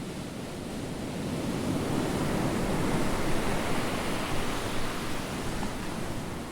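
Ocean surf breaking and washing up the beach, a steady rush that builds to a swell about three seconds in and then eases.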